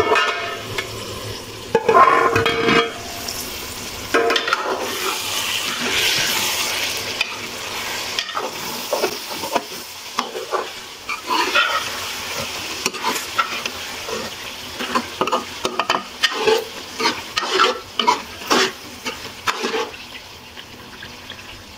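Metal spatula stirring pieces of taro root and eggplant in an aluminium pot, scraping and clinking against the pot in irregular strokes over a steady sizzle of frying masala. A loud metal clank about two seconds in, as the pot's lid comes off.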